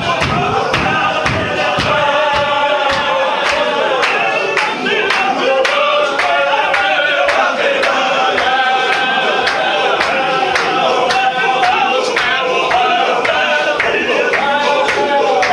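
Men's voices chanting a Sufi zikr together in unison, a repeated chant carried by many voices. Sharp, even beats run under it about three times a second, with heavier low thumps in the first couple of seconds.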